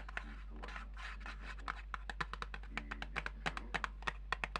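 ASMR tapping and scratching with the fingers on small objects: a fast run of sharp clicks, several a second, mixed with scratchy rubbing. A steady low background hum runs underneath.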